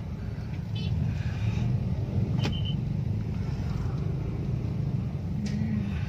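Car's engine and road noise heard from inside the cabin, a steady low rumble. There is a sharp click about two and a half seconds in and another about five and a half seconds in.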